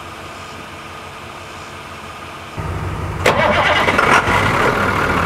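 School bus engine being jump-started after a suspected flat battery: the starter cranks briefly about two and a half seconds in, the engine catches a moment later and keeps running steadily.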